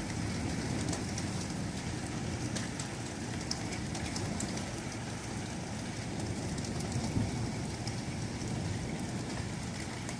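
Steady rain from a thunderstorm, an even hiss with scattered drop ticks.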